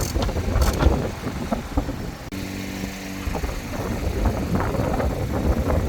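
A steady low engine rumble with scattered knocks and clicks. The sound drops off abruptly a little over two seconds in.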